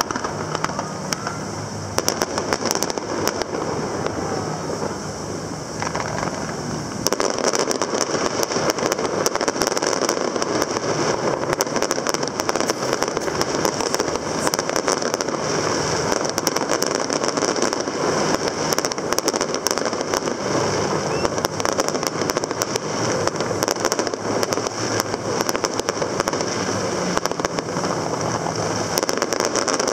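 Fireworks display going off: a dense run of crackles and small bangs that grows thicker and louder about seven seconds in, over a steady low engine hum.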